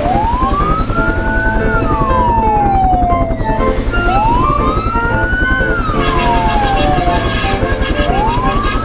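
A wailing siren, rising and falling slowly about once every four seconds, over background music.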